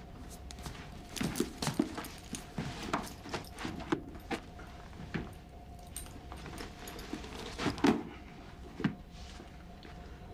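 Faint clinks, rustles and soft knocks of a person moving about, scattered and irregular, with the loudest knock about three-quarters of the way through, over a faint steady hum.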